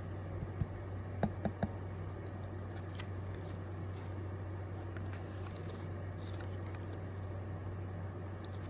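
A few sharp little clicks and taps from small items being handled, four of them close together about a second in, then only faint ticks, over a steady low hum.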